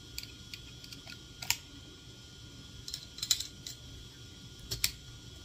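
Guitar effect pedals and patch cables being handled while fitting them onto a pedalboard: a scattering of sharp clicks and light knocks, loudest about a second and a half in, a little after three seconds, and near the end.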